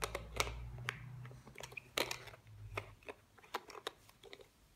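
Light, irregular clicks and taps of small wooden toy cookie pieces being handled against a wooden latch board, with a faint low hum that fades out about three seconds in.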